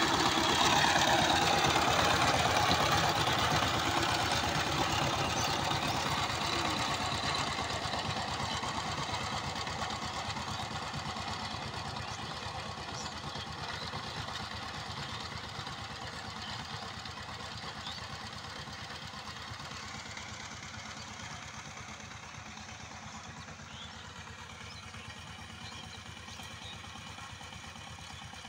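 Power tiller's 12-horsepower single-cylinder diesel engine running steadily under way, its fast even firing beats growing gradually fainter as it moves off.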